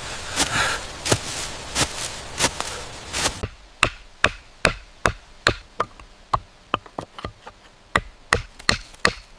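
A hand tool striking wood again and again in sharp knocks, as in carving or chopping a root. About three and a half seconds in, the background hiss drops away and the strikes come faster, about two to three a second.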